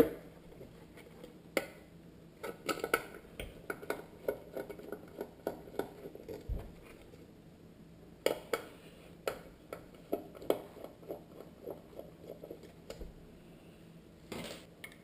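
Irregular small clicks and taps of hard plastic and metal parts being handled and worked loose while taking apart a car headlight housing.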